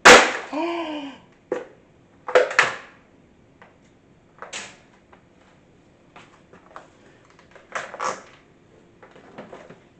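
Kitchen handling clatter: a loud scrape at the start, then a series of short knocks and clacks from utensils and bakeware while cookie dough is worked into a pan.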